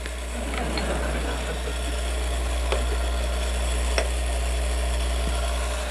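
Steady low electrical hum from an energized toroidal rotating-field stator, a large wound toroid driven as a 4-pole, 2-phase system, with two faint light clicks as an aluminium can is handled on top of it.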